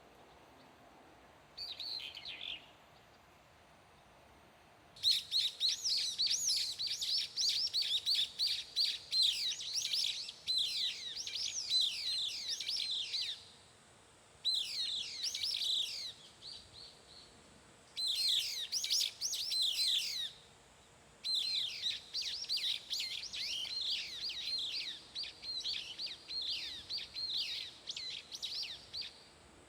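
A bird calling in long bouts of rapid, high, down-slurred chattering notes, broken by short pauses. One short call comes first, about two seconds in.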